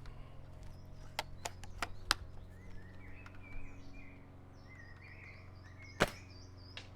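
High-pressure-air airsoft pistol fired once through a chronograph, a single sharp shot about six seconds in, after a few light clicks of handling.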